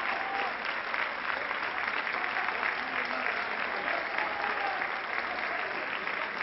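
Large crowd of football supporters in the stand clapping steadily and continuously, with a few scattered shouts in the mix.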